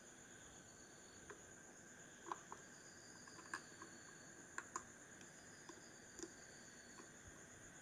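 Faint, scattered light clicks and taps, about eight spread over several seconds, over a quiet steady hiss: small parts and tools being handled during the fan's reassembly.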